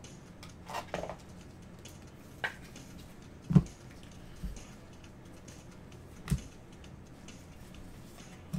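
Trading cards and packs being handled on a tabletop: scattered light taps and clicks, the loudest about three and a half seconds in.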